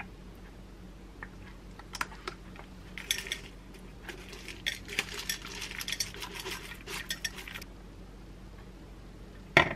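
Dry granola shaken out of a plastic bottle onto a plate of apple and yogurt, a crackling rattle from about three to seven and a half seconds in, after a few light plastic clicks from a bottle cap. One sharp knock near the end.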